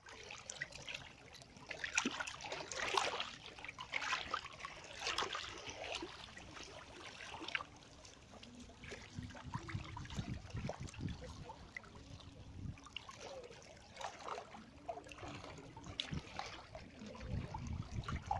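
Seawater washing and trickling in small surges that swell and fall every second or two.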